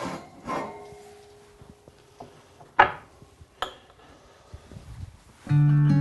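A hot ceramic ramekin being set down on a wooden cutting board: a few light knocks and one sharp clack a little before halfway. Acoustic guitar music starts near the end.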